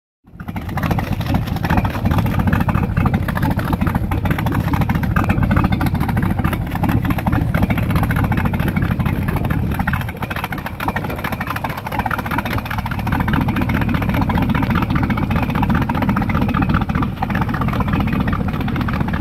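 Cobalt 190's 5.0 MPI V8 marine engine running at low speed on open, unmuffled exhaust: a steady, loud, deep engine sound that dips briefly about halfway through.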